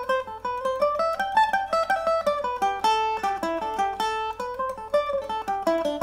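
Eastman MD304 mandolin playing a jig in A Dorian: a quick, even stream of single plucked notes, about five or six a second, in the jig's lilting triple rhythm.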